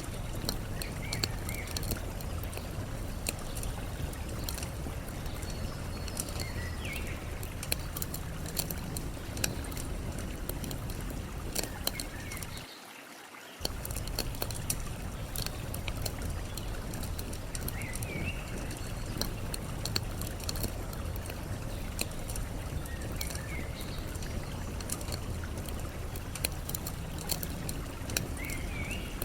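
Campfire crackling and popping over a steady rush of flowing water, with short bird chirps every few seconds. The low rush drops out for about a second near the middle.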